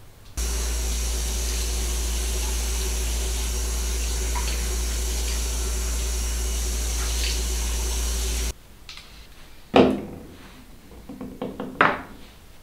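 Bathroom tap running steadily as hands are rinsed under it, cutting off suddenly after about eight seconds. Then a sharp knock and a few lighter clicks as skincare bottles are set down on the counter.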